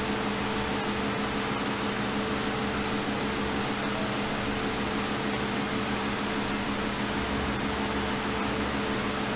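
Steady hiss with a constant low hum, unchanging throughout.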